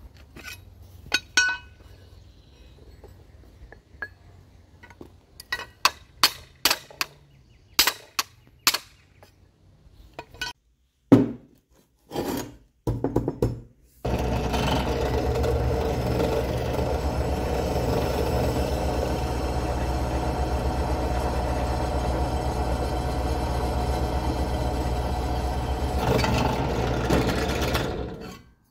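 Hammer blows on thin sheet steel, about a dozen irregular ringing strikes, as the plate is bent over a steel bar. About halfway through, a bench drill press starts running steadily and stops shortly before the end.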